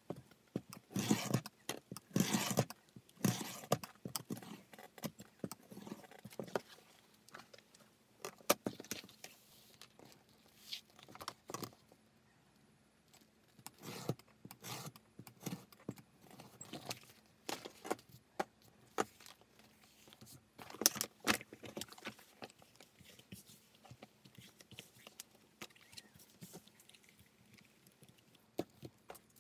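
Handling of leathercraft tools and materials on a cutting mat: scattered clinks, taps and rustles as a steel ruler, metal pattern weights, paper patterns and stiff crocodile leather are moved, with a few longer scraping strokes along the ruler.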